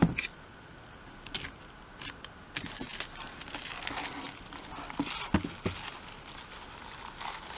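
Clear plastic shrink wrap being torn open and peeled off a hardcover album, crinkling and crackling in irregular bursts that get busier about a third of the way in.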